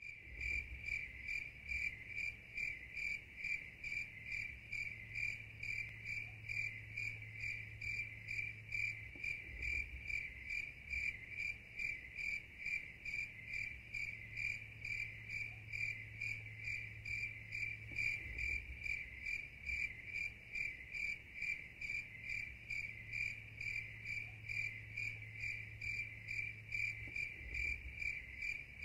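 Cricket chirping in a steady, evenly paced rhythm, a few high pulses a second, without a break.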